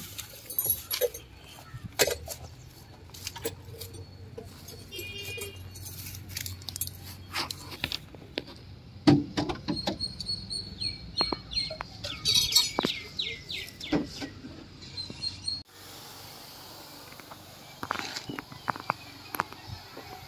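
Birds chirping in short repeated calls over scattered sharp clicks and knocks. The background changes abruptly about three-quarters of the way through.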